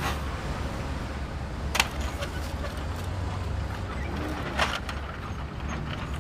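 Plastic toy construction trucks being handled: two sharp knocks about three seconds apart over a steady low rumble.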